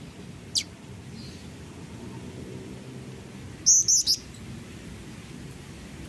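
Black-winged flycatcher-shrike (jingjing batu) calling. A single thin note sweeps quickly downward about half a second in, then a quick run of three sharp, high notes comes near the middle.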